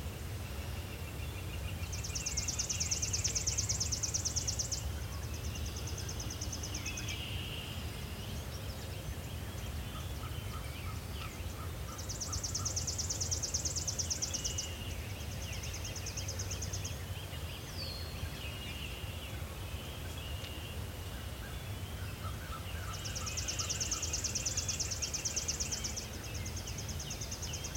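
A songbird's trilled song, given three times about ten seconds apart: each is a fast, high trill lasting about two to three seconds that passes straight into a second, slightly lower trill. Faint chirps of other birds and a steady low outdoor rumble run beneath.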